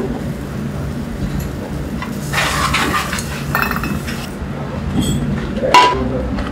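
Light clinks and clatter of dishes and utensils being handled at a kitchen counter over a steady low hum, with a sharp clink shortly before the end.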